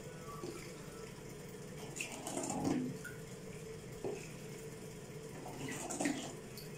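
Salt brine being scooped from a steel bowl with a cup and poured over green olives in a glass jar: liquid pouring and splashing, loudest about two and a half seconds in and again near six seconds.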